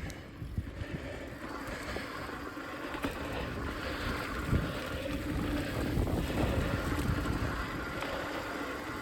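Wind buffeting the microphone and tyre rumble while a mountain bike is ridden along a trail, with a couple of sharp clicks. The rumble grows louder about halfway through.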